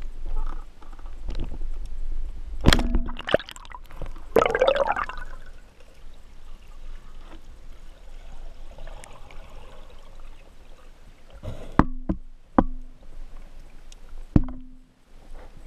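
Underwater audio during a speargun hunt: low water rush with sharp clicks and knocks in two groups, about three seconds in and about twelve seconds in. The later knocks, some with a brief low ring, come as the speargun is fired and the spear strikes a fish against the rocks.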